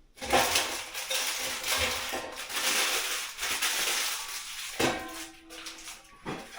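Dishes and cutlery clattering in a kitchen sink over a steady rush of noise, with a sharper clink about five seconds in.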